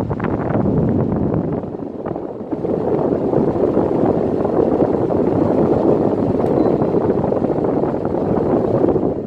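Window air conditioner running, its fan blowing with a steady, loud rush of air that gets a little louder about two and a half seconds in and starts to die away at the very end.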